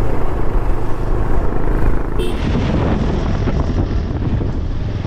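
Motorcycle running along the road with wind rushing over the microphone, a steady low rumble that changes abruptly about two seconds in.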